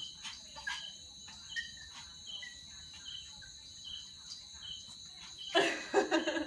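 Crickets and other insects trill steadily, with short chirps repeating irregularly. Near the end, a woman laughs out loud for about a second.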